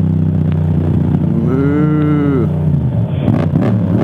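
Yamaha MT-07 parallel-twin engine running steadily through an Akrapovic exhaust. A cow moos once, a single rising-then-falling call lasting about a second, starting about a second and a half in.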